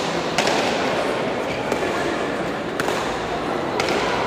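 Pelota ball struck by bare hands and rebounding off the fronton walls in a main nue rally: three sharp smacks spread over the few seconds, over a steady murmur of voices in the hall.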